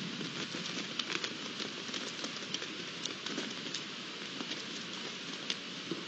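Steady outdoor night hiss with many light, irregular clicks and crackles scattered through it, like a soft patter.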